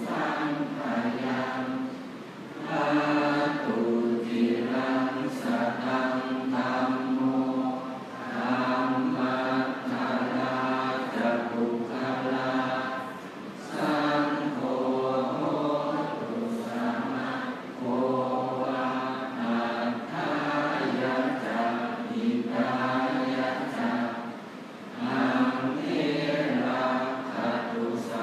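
Buddhist monks chanting the morning service together in unison, on a near-steady low pitch. The chant runs in long phrases with short breaks for breath about every five seconds.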